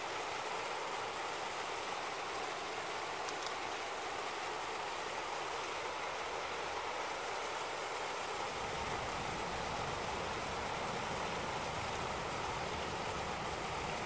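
Small woodland stream running over a little rock cascade, a steady rushing of water. A low rumble joins about halfway through.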